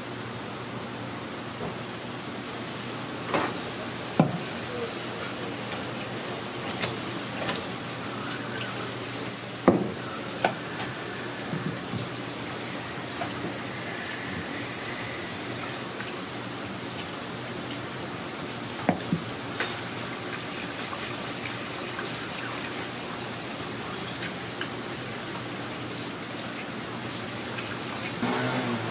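Water spraying steadily from a sink spray nozzle onto a flounder on a plastic cutting board while a knife scrapes the fish, starting about two seconds in and stopping just before the end. A few sharp knocks of the knife against the board stand out.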